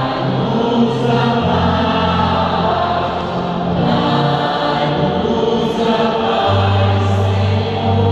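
A choir of women's voices singing a slow hymn, held notes over steady low accompaniment tones that shift in pitch every few seconds.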